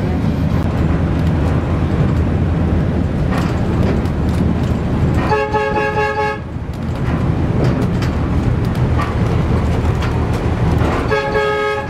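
Multi-tone horn of an AS1000 diesel railcar sounding two warning blasts of about a second each, about five seconds in and again near the end, over the steady rumble of the railcar running, heard from inside the train.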